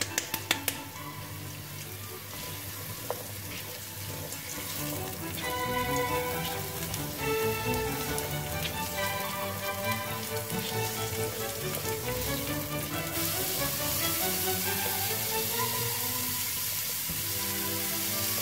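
Courgette and carrot pieces sizzling as they fry in olive oil in a frying pan; the sizzle gets stronger about two-thirds of the way through. A few sharp clicks come in the first second, and background music with a melody plays over it.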